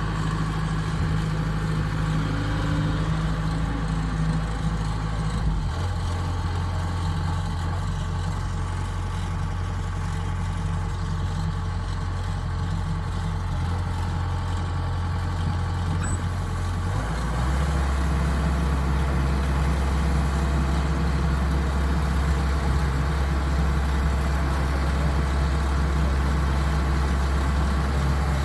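Diesel engine of a Kubota DC-105X combine harvester running steadily. Its low drone steps down in pitch about six seconds in and again around seventeen seconds, a little louder after the second change.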